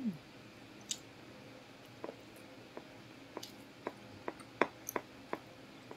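Quiet eating sounds: food being chewed with the mouth closed while fingers work rice in a ceramic bowl. It comes across as a string of small sharp clicks and wet smacks from about two seconds in, with a short falling 'mm' right at the start.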